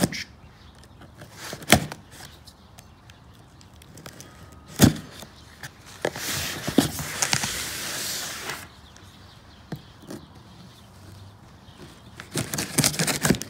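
Cardboard shipping box being cut open with a folding knife: two sharp knocks on the box, then a scraping rasp of blade on cardboard lasting about two and a half seconds, with light crackles near the end.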